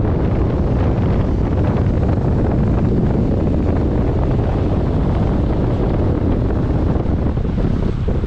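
Steady wind noise buffeting the microphone of a camera on a moving vehicle, a loud even rumble with hiss above it.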